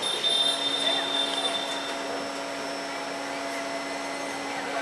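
Electric multiple-unit train humming steadily as it approaches, with a high electrical whine that fades out about two seconds in.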